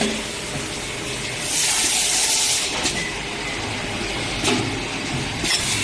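Automated steel-tube handling machinery on a vacuum bottle production line running: a steady mechanical din with scattered clicks and clunks from the pneumatic manipulators. About a second and a half in, a burst of hiss lasts about a second, typical of compressed air venting from a pneumatic cylinder.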